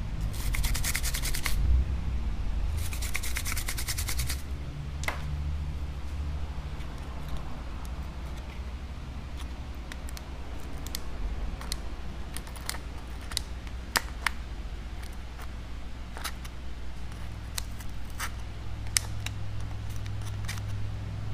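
A toothbrush scrubbing an iPad Air's frame in two short bursts of quick strokes, brushing off leftover bits of broken glass, followed by scattered light clicks and taps.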